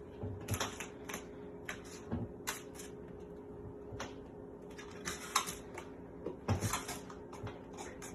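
Irregular light clicks and knocks, a few in quick clusters, over a steady low hum.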